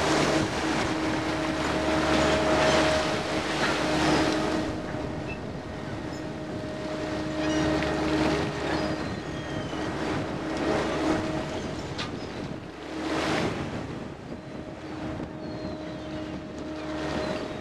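Fishing trawler's engine and deck machinery running with a steady hum, over wind buffeting the microphone and sea water washing and splashing, as the trawl net pays out over the stern into the sea.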